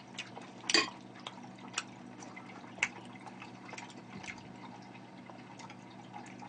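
Quiet eating noises: scattered small clicks and smacks of chewing and of chopsticks handling food, the sharpest about a second in and about three seconds in, over a low steady hum.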